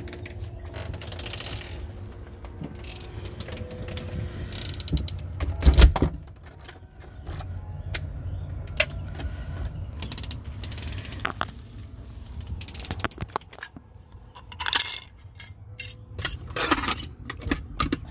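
A heavy thump about six seconds in among scattered clicks and rustling, over a steady low rumble.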